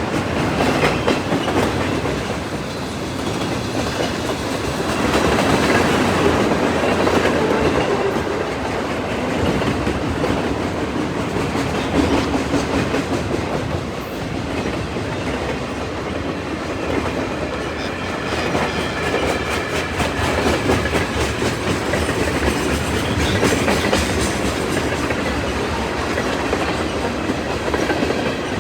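CN freight train's cars rolling past, with steel wheels clacking over the rail joints under a continuous rumble of wheels on rail.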